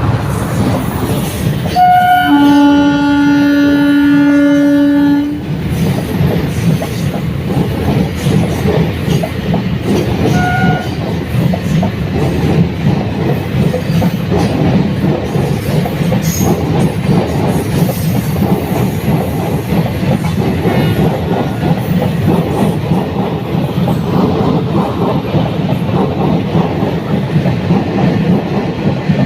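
Indian Railways express train passing. A short horn toot is followed by a long horn blast of about three seconds, then the steady clickety-clack of the coaches over the rails.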